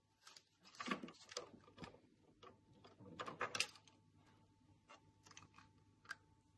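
Quiet clicks and knocks of small plastic toys being picked up and handled, a cluster about a second in and another around three and a half seconds, over a faint steady tone.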